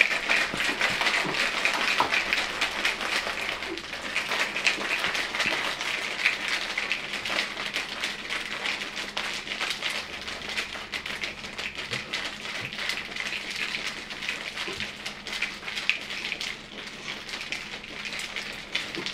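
Ice cubes rattling in a plastic shaker cup, shaken hard and continuously to mix a powdered energy drink. It is a dense, fast clatter that grows somewhat softer toward the end.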